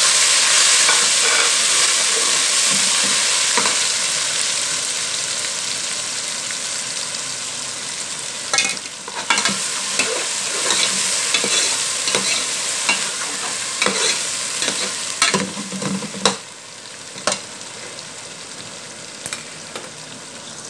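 Chopped tomatoes and green chillies sizzling in hot oil in a metal pot. The sizzle is loudest at first and slowly dies down. A steel ladle stirs the mix, scraping and clinking against the pot several times in the second half.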